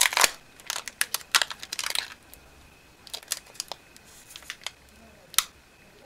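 Foil wrapper of a Yu-Gi-Oh! booster pack crinkling as it is opened by hand: a quick run of crackles in the first two seconds, then sparser crackles with one sharper crackle near the end.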